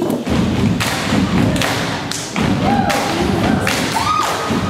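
A run of heavy percussive thumps and taps, the performers' stomps and body percussion on a stage, mixed with voices, and two short held sung notes, the second rising near the end.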